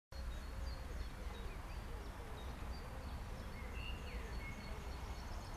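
Steady outdoor background noise with a low rumble, and faint bird chirps and whistles over it, including one falling call about four seconds in.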